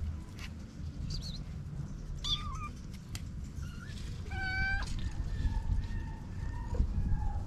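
Young kittens mewing: several short, high-pitched mews, the loudest about four and a half seconds in, followed by a longer, thinner drawn-out call.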